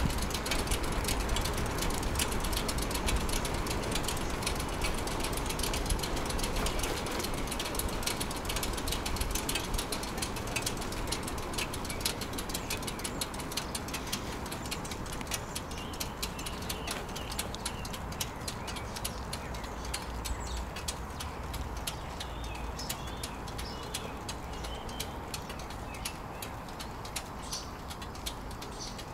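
Bicycle freewheel ticking rapidly and steadily while the rider coasts, over a low rumble of wind and tyres. Faint bird chirps come through in the middle stretch.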